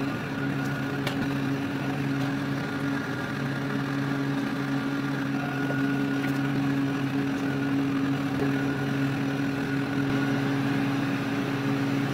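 Corded heat gun running steadily with a constant hum while vinyl wrap is post-heated to set it.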